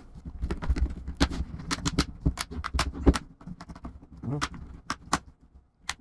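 Plastic back cover of an Asus Transformer T100TA tablet being pressed shut by hand, its clips snapping into place: an irregular run of sharp clicks with soft knocks of handling, pausing briefly near the end.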